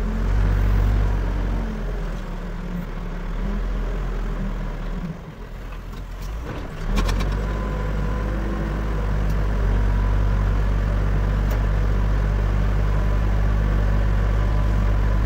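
Backhoe loader's diesel engine running steadily with a deep hum, easing off about five seconds in and picking back up about two seconds later.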